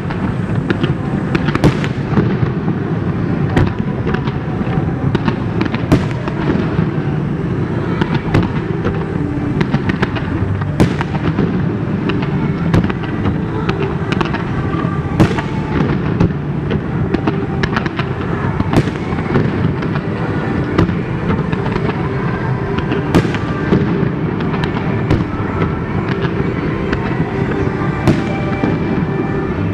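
Aerial fireworks display firing continuously: a dense, unbroken rumble of booms and crackle, with sharper loud bangs standing out every few seconds.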